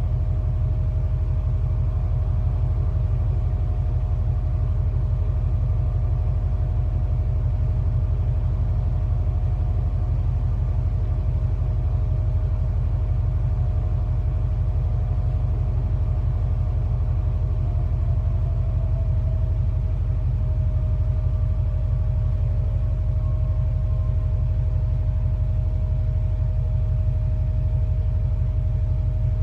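Cargo ship's engine humming: a steady, deep drone with a faint mid-pitched whine over it that dips slightly in pitch about two-thirds of the way through.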